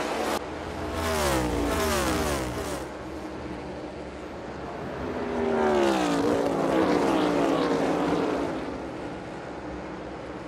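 NASCAR Cup race cars' V8 engines at full throttle passing by, the engine pitch dropping sharply as each goes past: one about a second in and another around six seconds in.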